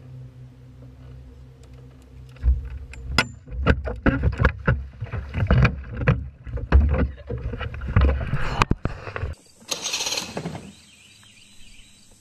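Irregular knocks and thumps against a small boat, several a second for about seven seconds after a quieter low hum. After a cut near the end comes a short hissing, rustling burst.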